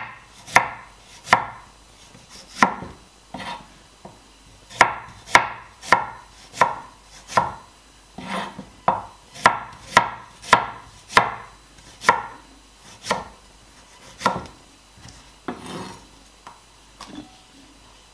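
Knife slicing red radish into rounds on a wooden cutting board: a series of sharp knocks, roughly one or two a second, growing sparser near the end.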